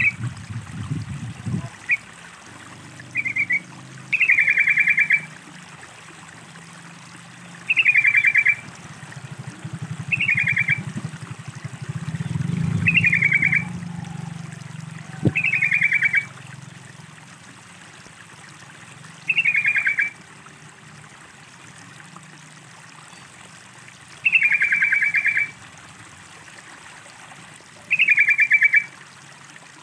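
Yellow-vented bulbul (trucukan) calling: short, bubbling, chattering phrases of about a second each, repeated every few seconds, over a faint background of trickling water.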